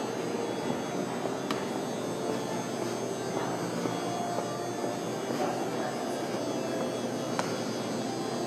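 Steady background hum of a large airport terminal hall, with two faint clicks, one about a second and a half in and one near the end.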